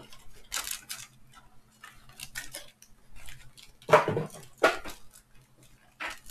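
Panini Contenders football blaster box being opened and its wrapped packs handled: scattered crinkles and taps of cardboard and plastic wrap, loudest around four seconds in.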